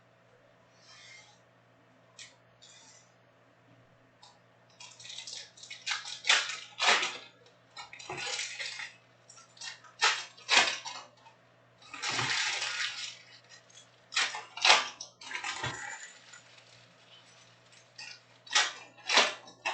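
Trading card pack wrappers being handled and torn open, in a series of irregular crinkling rustles that begin about five seconds in.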